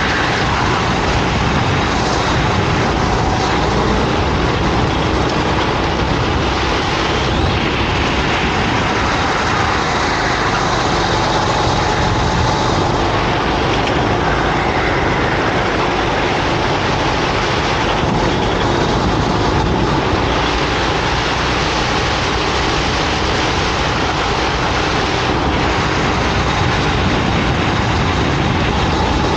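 Racing kart engine running hard at speed, loud and steady over a dense rush of noise, its note shifting only a little.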